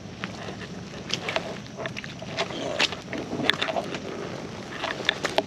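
Footsteps on wet, soggy ground, with irregular crackles and rustles from the trail underfoot.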